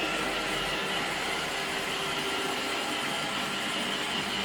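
iRobot Roomba 650 robot vacuum running as it cleans the floor: a steady mechanical whir with a constant whine.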